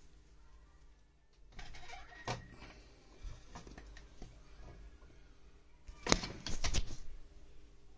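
Metal parts of a small prayer-bead lathe being handled and adjusted: scattered clicks and rustling, then a quick cluster of sharp clicks and clatter about six seconds in, over a faint steady hum.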